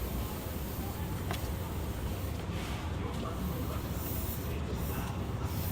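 Fukuoka City Subway 2000 series train running in the tunnel: a steady rolling and rushing noise, with no distinct motor whine rising or falling.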